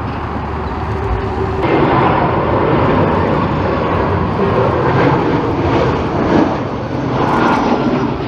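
Jet airliner's engines running loud and steady close by, the roar jumping up abruptly about a second and a half in.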